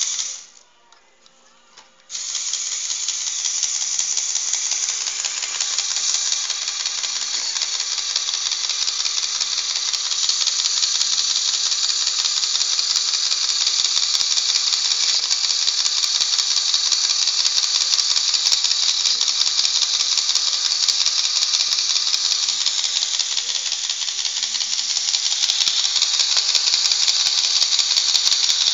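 Homemade Lego Technic paper shredder running: its Lego motor and plastic gears give a dense, high-pitched rattling clatter. A short burst of it at the very start stops, then it starts again about two seconds in and keeps going steadily.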